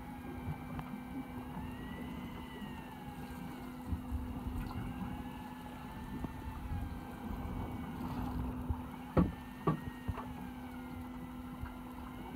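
A fishing boat's engine idling with a steady hum, a faint whine above it that slowly wavers up and down in pitch. There are two short knocks about nine seconds in.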